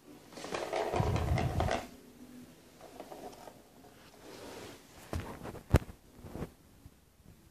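Kitten playing at a green plastic circle-track cat toy: a rattle lasting about a second and a half near the start, then a few light knocks and one sharp click a little before the end.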